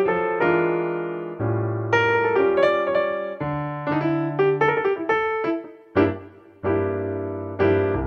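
Gentle background piano music: single notes and chords struck one after another, each ringing and fading.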